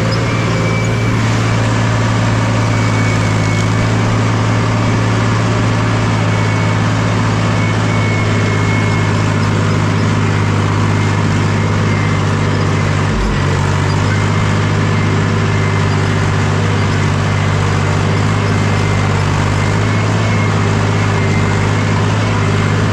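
Tractor diesel engine running steadily while pulling a spring-tine cultivator through dry soil, heard close up from the driver's seat. There is one short knock about halfway through.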